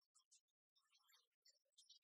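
Near silence, with only faint scattered high-pitched specks of noise.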